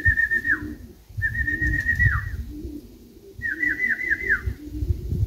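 Domestic pigeons cooing, with three high trilled whistles that each end in a falling note.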